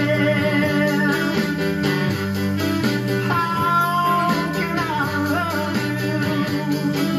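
Small band playing: upright bass, drums and archtop electric guitar, with a melody on long held notes over them.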